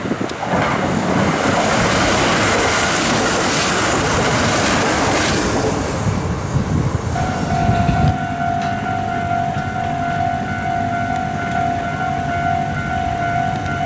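A Kintetsu Kyoto Line electric train passing on the tracks, a loud rush of wheel and rail noise, which fades after about six seconds; then a level crossing's warning bell starts ringing in a steady repeating ding.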